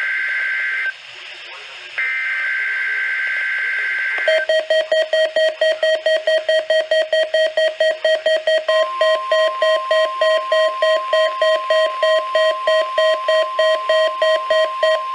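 Two bursts of the NOAA Weather Radio SAME header, screeching two-tone data tones about two seconds each. About four seconds in, the Midland WR301 weather radio's alert starts beeping rapidly, about four times a second. About nine seconds in, the steady 1050 Hz warning alarm tone of the weekly test comes in under the beeping.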